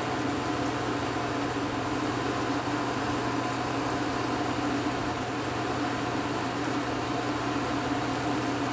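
Chicken-broth and wine pan sauce at a full boil, bubbling steadily in a skillet, under a steady mechanical hum.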